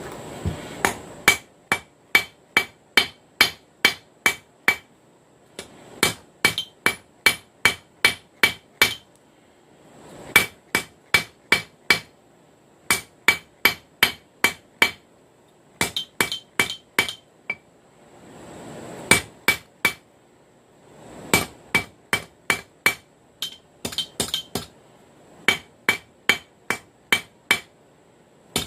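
Hand hammer striking hot steel, a railroad rail end cut, on an anvil: runs of evenly spaced ringing blows, about two to three a second, broken by short pauses, drawing the piece out to a taper.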